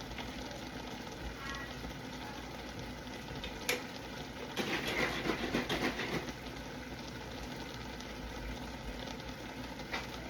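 Food sizzling steadily in a pan, with a sharp click a little before the middle and a spoon stirring and scraping the pan for about a second and a half after it.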